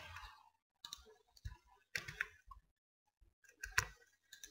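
Computer keyboard keystrokes and mouse clicks: a few scattered, fairly faint taps in small clusters.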